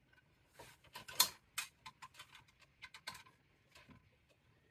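Irregular small metallic clicks and short scrapes of a screwdriver working a wire terminal screw inside an oil boiler's aquastat control box, the loudest click a little over a second in.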